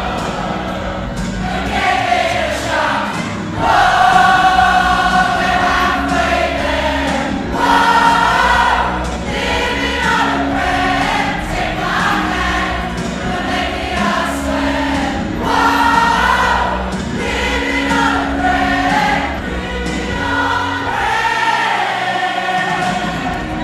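Choir singing a song in harmony, several voice parts at once.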